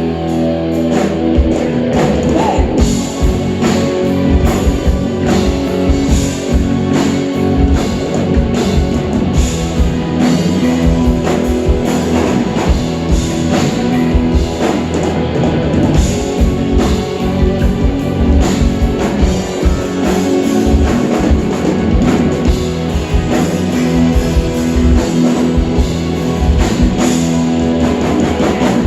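Live rock band playing an instrumental passage: guitar over a drum kit, with the drums coming in about a second in and keeping a busy beat.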